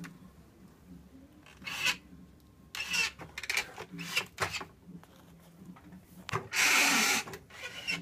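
A few short rubbing and scraping noises from a handheld phone being moved against something, with the longest and loudest a little after six seconds in.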